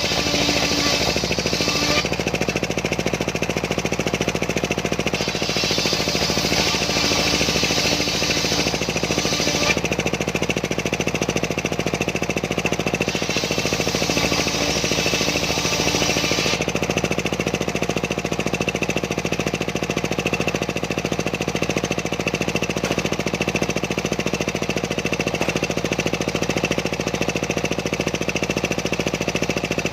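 Homemade engine-driven circular sawmill running steadily. A higher-pitched sawing noise comes in three stretches as the blade cuts through sengon wood: near the start, from about 5 to 10 seconds in, and from about 13 to 16 seconds in. After that the engine and blade run on alone.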